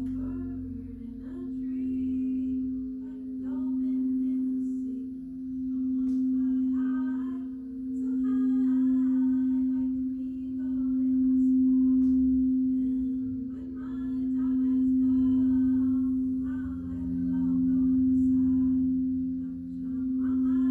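Singing bowl sounding one long, steady low tone with overtones above it. The tone swells and fades in slow waves about every two seconds.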